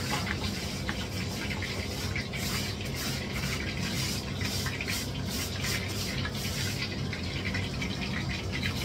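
Hot oil sizzling and crackling steadily in a frying pan, with a steady low hum underneath.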